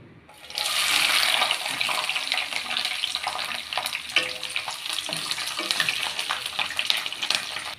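Peeled garlic cloves frying in hot sesame oil: a loud sizzle that breaks out about half a second in as the cloves hit the oil, then keeps crackling and popping steadily.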